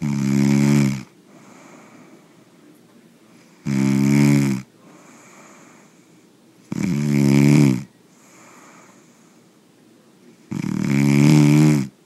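A person snoring: four loud snores about three to four seconds apart, each lasting about a second with a low buzzing tone that drops in pitch at its end, and quieter breathing between them.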